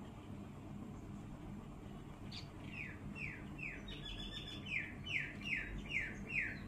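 A bird chirping: a run of short, quickly falling notes, about two or three a second, starting a couple of seconds in, over a low steady hum.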